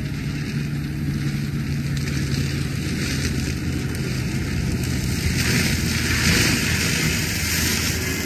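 Denis Cimaf forestry mulcher head on a carrier machine working brush. The carrier's engine runs steadily under load while the cutting drum shreds vegetation with a hissing, crackling rush that swells about five seconds in.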